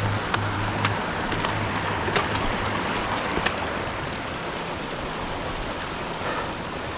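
A steady rushing outdoor noise with a few sharp clicks in the first half; a low music beat fades out within the first second.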